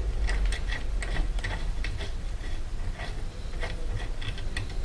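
Light metallic clicks, a few a second and unevenly spaced, from hand work with a tool at the crank and bottom bracket of a new bicycle as the loose bottom bracket is refitted.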